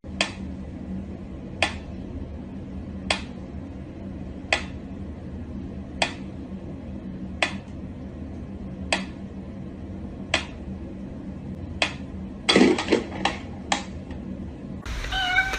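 Sharp clicks or taps on a hard object, repeating evenly about every second and a half over a low steady hum, then a quick flurry of louder knocks near the end.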